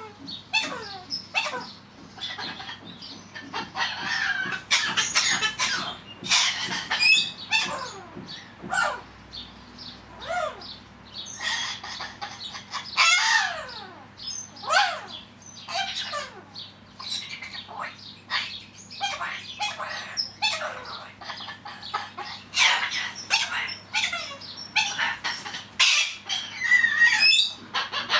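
Corella parrot waffling away to himself: a steady run of short chattering calls, many sliding down in pitch, mixed with harsher screeches.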